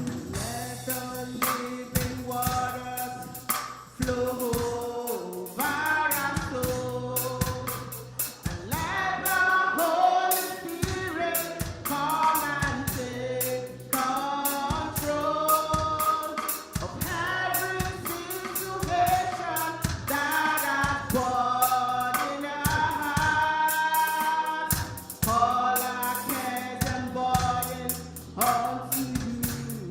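Gospel worship song: a group of voices singing together over a band with a steady drum beat and bass.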